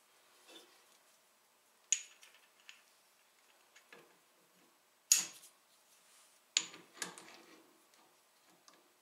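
Steel jig and workpiece clinking against each other and the machine vise as they are set in place by hand: a few sharp, separate metallic clicks, the loudest about five seconds in, with no motor running.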